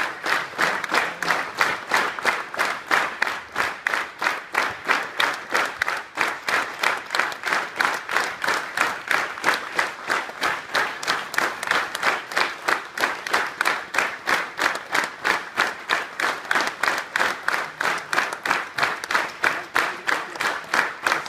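Audience applauding, with a steady, even clapping rhythm of about four claps a second.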